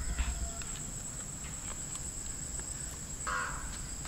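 Steady high-pitched drone of crickets, with soft knocks as the metal sev press is handled at the start and a brief animal call about three seconds in.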